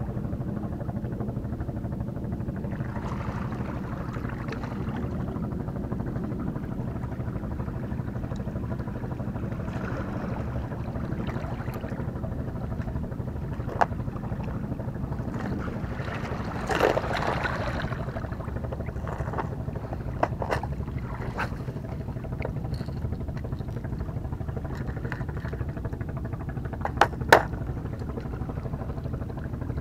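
Steady low engine drone of constant pitch, with a few sharp plastic clicks and knocks as lures are handled from tackle boxes, the loudest pair near the end.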